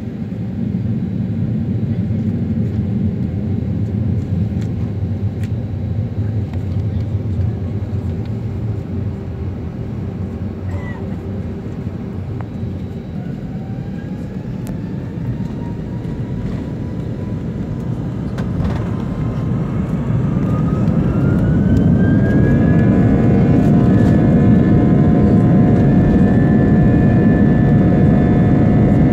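Jet airliner engines heard from inside the passenger cabin, spooling up for take-off. From about halfway a whine rises in pitch, and the engine noise grows louder, then holds loud and steady.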